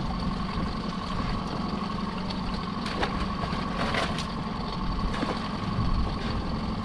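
Small fishing boat's engine idling steadily, with a few sharp knocks and rattles about three, four and five seconds in from a crab pot being handled and emptied at the rail.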